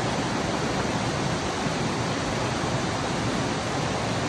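Steady rushing of a shallow river and waterfall.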